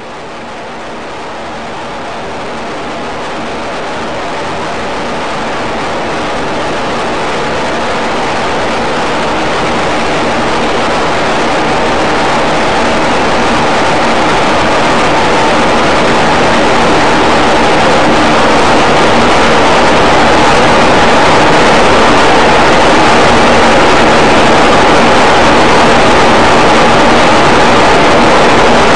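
A single belt-driven power loom running in a weaving shed: a loud, dense, steady mechanical noise that fades in slowly, grows louder through the first two-thirds, then holds steady.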